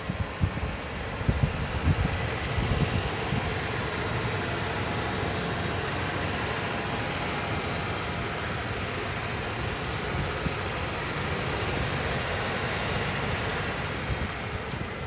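A 1992 Ford F-350's engine idling steadily with the hood open.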